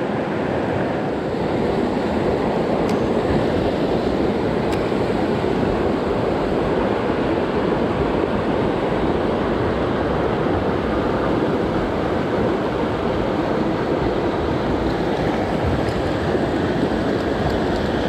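Fast mountain river rushing steadily over rocks and rapids.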